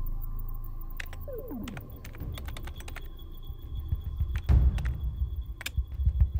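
Computer keyboard keys clicking as a short comment is typed, over a low film score that swells with deep booms from about four and a half seconds in.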